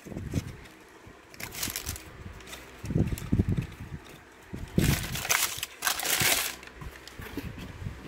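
Tissue paper in a sneaker box crinkling and rustling in several bursts as the shoes are lifted out, mixed with soft knocks of the cardboard box being handled.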